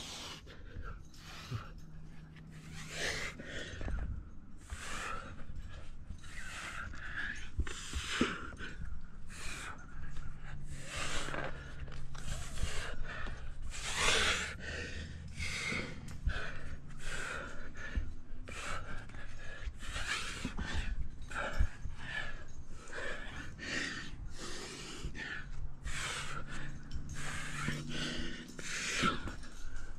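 A rock climber breathing hard, with quick, forceful breaths about once a second: the panting of exertion on a hard climb.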